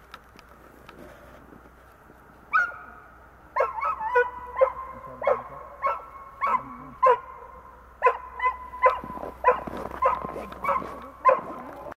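A dog barking repeatedly, one bark a little over two seconds in, then a steady run of about two barks a second: a trained rescue dog's bark indication (halsmelding), signalling that it has found the hidden person.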